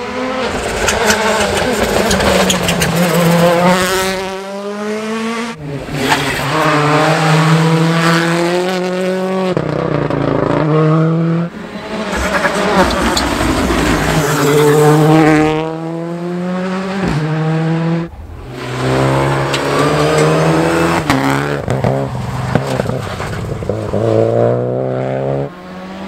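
Rally cars driven hard through a bend, one after another, each engine revving up steeply and dropping back at gear changes. The sound cuts abruptly from one car to the next several times.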